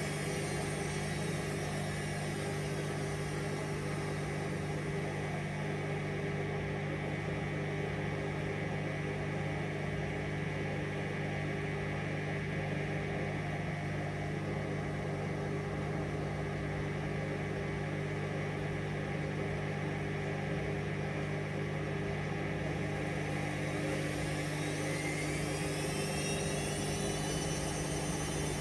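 Hoover Vision Dynamic washing machine running with a steady motor hum: its whine falls in pitch over the first few seconds as the drum slows, then rises steeply about 24 seconds in as the drum speeds up again, turning smoothly.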